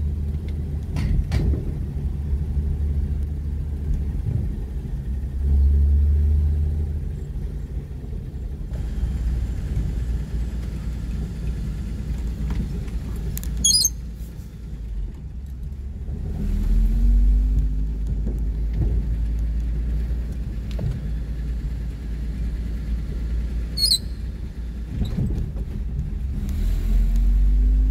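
1940 Chevrolet Master Deluxe's inline-six engine running with low road rumble, heard from inside the cabin while the car drives; the engine pitch climbs a little past the middle and again near the end as it picks up speed. Two brief high squeaks come through, one before the middle and one near the end.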